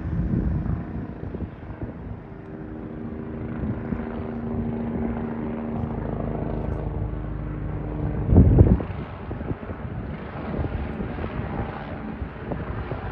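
Eurocopter EC145 police helicopter flying overhead: a steady drone from its rotor and twin turbine engines, with its tones shifting slightly in pitch as it circles. About eight seconds in there is a brief, louder low rumble.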